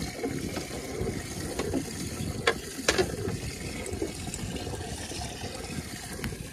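Water sloshing against a boat's hull, with the mechanical ticking of a spinning fishing reel being handled and two sharp clicks about two and a half and three seconds in.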